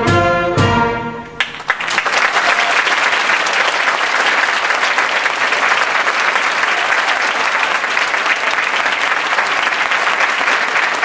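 A beginning school concert band plays its closing chords, which stop about a second and a half in. An audience then applauds steadily.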